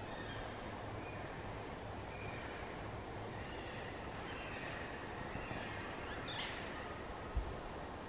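Wind roaring steadily through the forest branches, with faint, distant squealing calls of yellow-tailed black cockatoos scattered throughout and one louder call about six seconds in. A brief low thump of wind on the microphone near the end.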